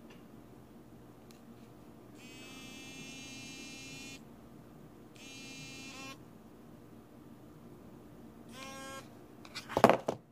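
Mobile phone buzzing with an incoming call: a buzzy tone about two seconds long, a shorter one after a one-second gap, then a brief one. A few loud knocks come near the end.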